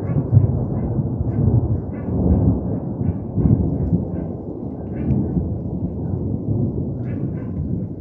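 Long rolling thunder from an electrical storm: a continuous deep rumble that slowly eases off in the second half.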